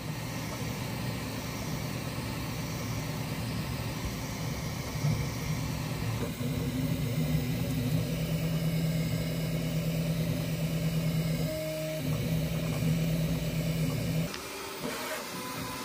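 Bambu Lab P1S 3D printer printing: a steady mechanical whir from its fans, with the stepper motors humming in tones that change as the print head's moves change. The sound drops in level about 14 seconds in.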